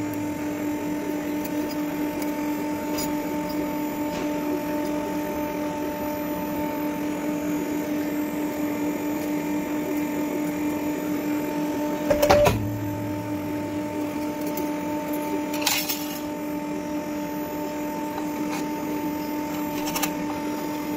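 Steady hum of a stamping press's motor. About twelve seconds in comes one loud clunk as the press strikes, followed by a brief deeper hum, and a shorter click a few seconds later.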